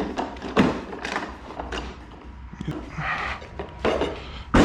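Knocks and clunks of portable workbench legs being fitted and pushed into place, with a brief scrape about three seconds in.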